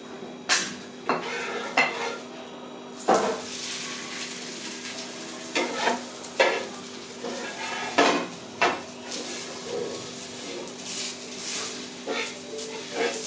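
Chapati frying in oil on an iron tawa: a light sizzle that thickens about three seconds in, broken by about a dozen sharp clicks and scrapes of a metal spatula against the griddle as the bread is pressed and turned.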